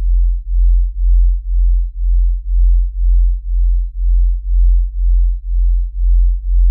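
8-inch car subwoofer in a ported box playing a very deep bass tone that pulses evenly, about twice a second.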